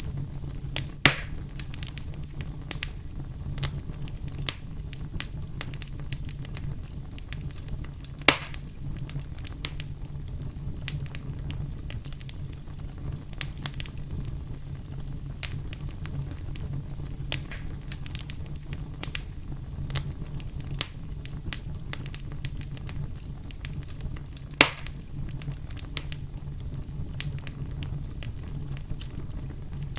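Campfire burning with frequent small crackles over a steady low rumble, and three louder pops of the wood: about a second in, about eight seconds in, and near twenty-five seconds.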